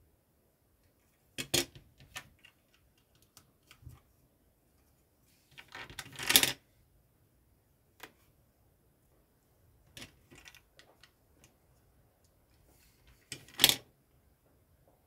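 Plastic LEGO bricks clicking and snapping as small pieces are handled and pressed together. Scattered sharp clicks, with the loudest cluster of snaps about six seconds in and another strong snap near the end.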